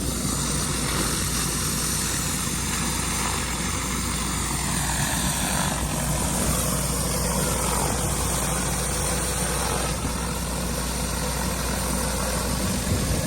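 10-gallon-a-minute pressure washer's engine running steadily, with the hiss of high-pressure water from a surface cleaner on concrete.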